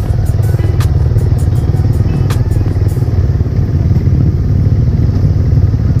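Motorcycle running while being ridden, a steady low rumble, with a couple of sharp knocks about one and two seconds in.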